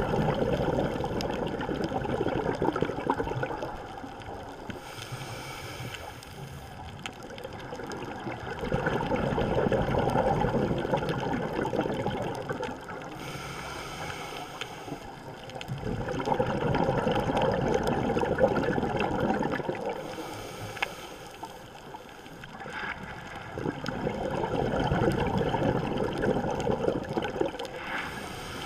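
Scuba diver breathing through a regulator underwater. A short hiss of each inhalation is followed by a long rush of exhaled bubbles, in a slow cycle repeating about every eight seconds.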